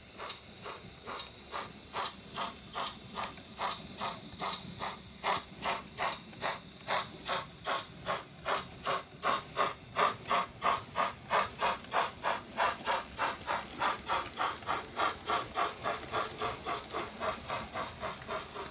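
DCC sound decoder of a Bachmann OO gauge GWR Dukedog (Earl class) 4-4-0 steam locomotive, playing its exhaust chuffs through the model's small speaker as it runs. The beats are steady and even, quickening from about two to about three a second, and grow louder toward the middle before easing off slightly.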